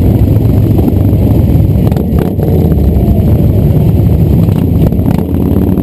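Motorcycle engines idling close by, a loud, steady low sound as a line of bikes sits almost stopped.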